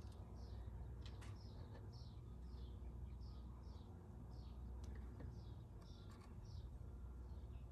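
A small bird chirping faintly in a steady series, each short chirp falling in pitch, about two a second. A few light clicks and a low hum sit beneath it.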